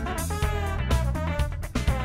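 Background music: a band with guitar, bass and drums playing.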